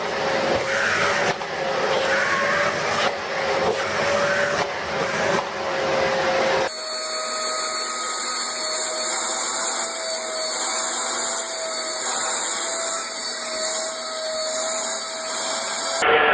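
Vacuum cleaner motors running steadily. About seven seconds in the sound cuts abruptly to another vacuum cleaner with a steadier, higher whine.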